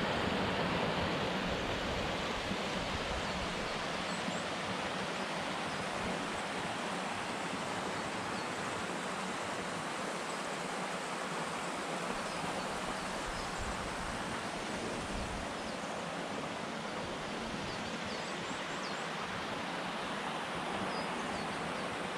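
Mountain creek running steadily beneath the snow, an even rushing hiss that is a little louder at the start.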